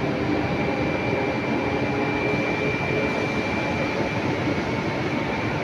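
Steady drone of sugar-mill machinery, with a faint, steady high whine over it.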